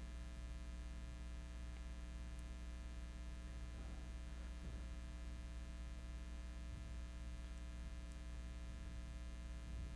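Steady electrical mains hum with a stack of evenly spaced overtones, low in level.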